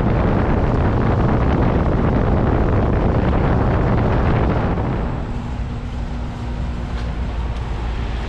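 Daikin central heat pump outdoor unit running in cool mode, a steady rush of fan air mixed with wind on the microphone. About five seconds in the rushing eases and a steady low hum comes through.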